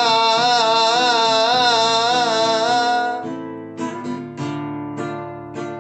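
Song with acoustic guitar: a long sung note held with vibrato ends about three seconds in, then the guitar is strummed and plucked alone.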